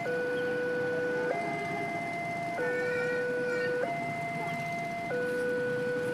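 Electronic warning signal of a railway level crossing, sounding while the barrier is down and a train is due. Two steady tones, one low and one higher, alternate slowly, each held about a second and a quarter.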